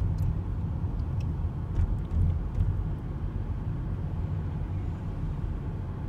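Steady low rumble of a car's engine and tyres heard from inside the cabin as it drives slowly along a street.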